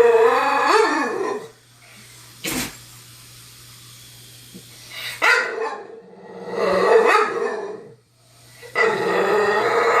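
A dog barking and growling at something in several drawn-out bouts. There is a single sharp knock about two and a half seconds in, under a low steady hum.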